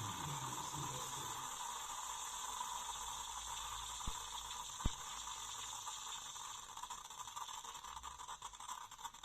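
Tassimo Suny pod coffee machine brewing: a steady hiss of hot water and steam running through it. Two sharp clicks come about four and five seconds in, and the flow turns uneven and tails off near the end.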